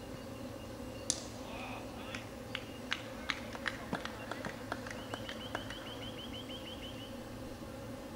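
Cricket ball struck once with a sharp knock about a second in, as the delivery reaches the batter, followed by a scatter of quieter irregular clicks. Later a bird repeats a short high chirp about eight times a second for two seconds, over a steady low outdoor hum.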